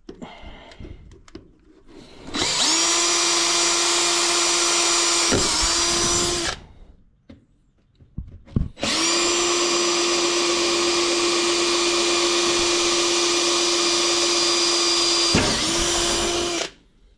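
Power drill boring holes through a workbench top in two runs: one of about four seconds, then after a short pause one of about eight seconds. The motor holds a steady pitch and dips briefly near the end of each run.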